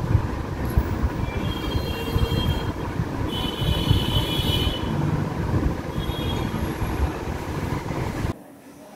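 Loud steady rumbling background noise with a few brief high tones around the middle; it cuts off suddenly near the end.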